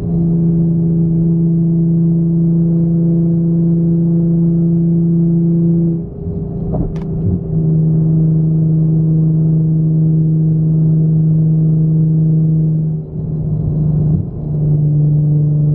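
Nissan 350Z's straight-piped V6 exhaust droning steadily, heard from inside the cabin while cruising. It dips twice, about six seconds in and again near the end, each time returning at a slightly lower pitch, as the car shifts up a gear. There is a short click after the first dip.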